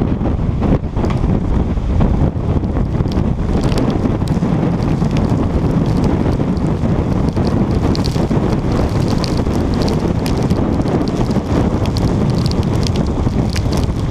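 Storm wind buffeting the microphone, loud and steady, with scattered small ticks of raindrops hitting the camera from about three seconds in.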